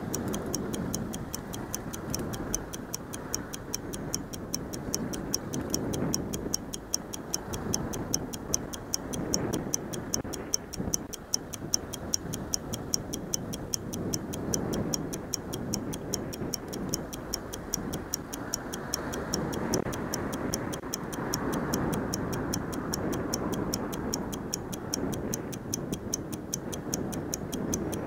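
Stopwatch-style ticking sound effect, an even run of rapid ticks several times a second, laid over wind noise and traffic rumble.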